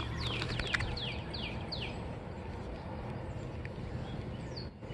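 A small songbird singing a quick run of high, falling notes for about a second and a half, with one more note near the end, over steady outdoor background noise.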